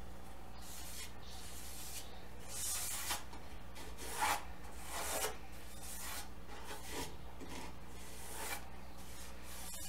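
Small hand plane shaving the edge of a wooden door: a series of short scraping strokes about a second apart, beginning a couple of seconds in, over a low steady hum.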